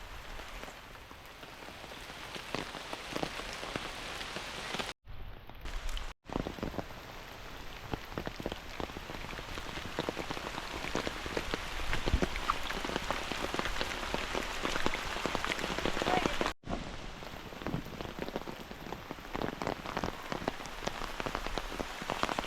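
Rain falling, a dense patter of many separate drops that grows louder through the middle. The sound cuts out completely for a moment three times.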